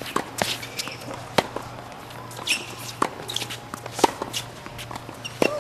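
Tennis rally on a hard court: racket strikes and ball bounces as a string of sharp pops, roughly one a second.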